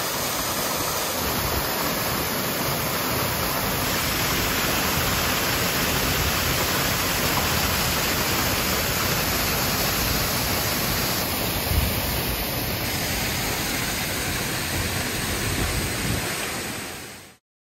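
Artificial rock waterfall splashing into a pond: a steady rush of falling water, with one short low thump about twelve seconds in. It cuts off abruptly near the end.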